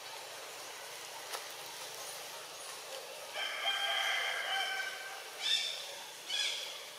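An animal call held for about a second and a half, then two short sharp calls near the end, over a steady outdoor hiss.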